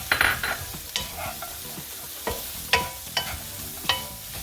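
Carrots, onions and green peppers sizzling in oil in a frying pan as they are stirred, with about six sharp knocks of a utensil against the pan, several ringing briefly like metal.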